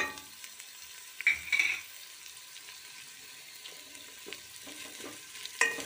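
Chicken, onion and ginger-garlic sizzling in oil in a metal pot while a spatula stirs them, with a steady faint sizzle. The spatula scrapes the pot bottom briefly about a second and a half in, and again near the end.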